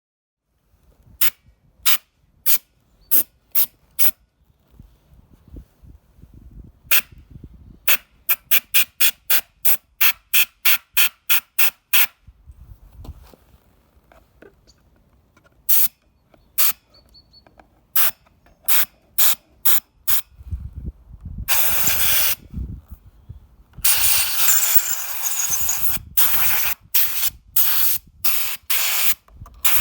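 Compressed air fired in short, sharp hissing bursts, many in quick succession, with two longer blasts past the middle: blowing built-up dust out of an early-2008 24-inch iMac.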